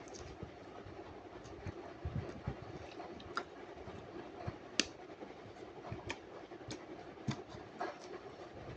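Hands squishing and stretching sticky slime, giving irregular small pops and clicks, the sharpest about five seconds in, over a steady low hum.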